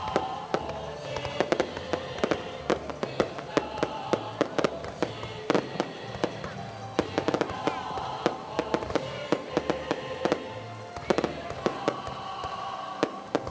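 Fireworks going off in a rapid, irregular string of sharp bangs and crackles, with music playing underneath.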